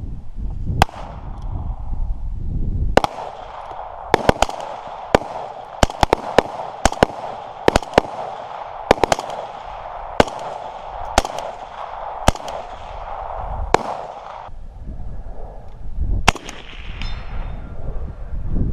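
Rifle fire at steel targets: a long uneven string of about two dozen shots, single or two to three in quick succession with short gaps, stopping about 14 seconds in, then one more shot a couple of seconds later.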